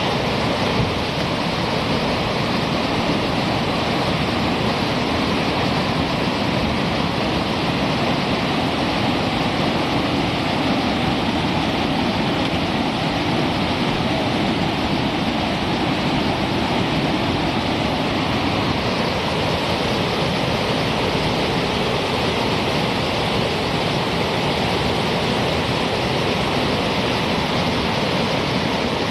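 Whitewater rapids rushing over river boulders: a steady, unbroken rush of water.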